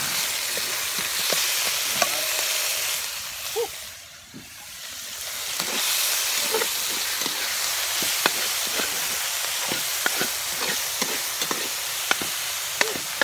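Corned beef sizzling as it fries in a pan, stirred with a spatula that clicks and scrapes against the pan many times. The sizzle drops briefly about four seconds in, then comes back.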